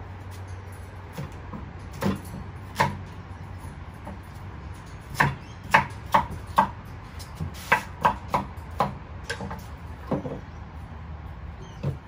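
Kitchen knife chopping a sweet potato on a wooden chopping board: about a dozen sharp, irregular knocks of the blade striking the board, coming quickest in the middle.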